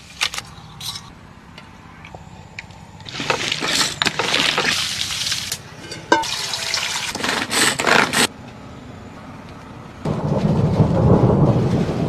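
Water poured out of a metal cooking pot, splashing in two gushes of about two seconds each, followed by a low rushing noise near the end.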